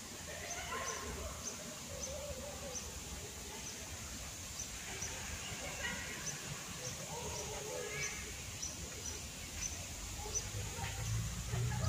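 Outdoor ambience: a small bird chirping over and over in short high notes, with faint distant voices. A low rumble grows near the end.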